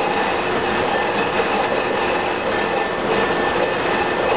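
Accu-Turn 8944 brake lathe running with a brake drum spinning on its arbor: a steady, loud metallic whir and ringing howl, unbroken throughout, with a few sustained tones over it.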